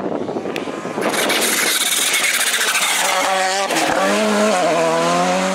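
Volkswagen Polo GTI R5 rally car at speed: a loud rush of engine and tyre noise as it comes past, then its engine note climbing as it accelerates away, with a short drop at a gear change about four seconds in.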